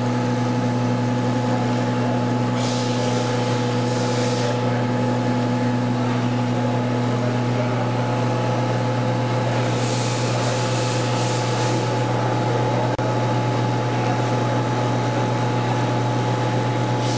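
A small electric motor running steadily with a strong low hum and a few steady higher tones. Short hissing bursts come twice, about three and ten seconds in.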